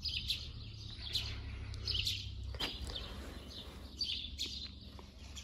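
Small birds chirping in short, scattered calls, over a low steady rumble.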